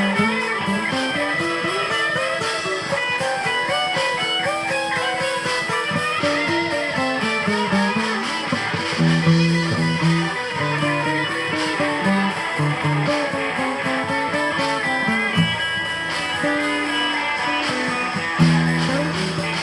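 Live blues band playing an instrumental break, with an electric guitar taking a solo over the band's steady beat.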